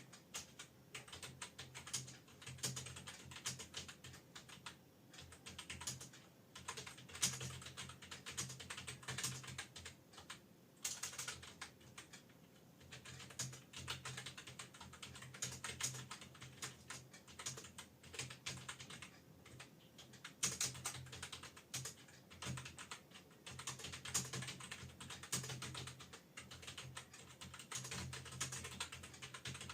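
Continuous typing on an external computer keyboard: a fast run of key clicks, with short pauses every few seconds.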